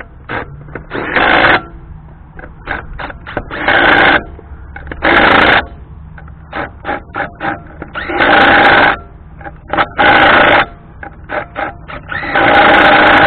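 A wrench running lug nuts down onto a camper wheel's studs in about six short rattling bursts, half a second to a second each, with quicker clicks in between.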